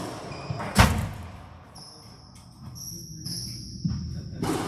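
A single sharp knock about a second in, typical of a squash ball striking the court, followed by high-pitched squeaks of court shoes on the squash court floor.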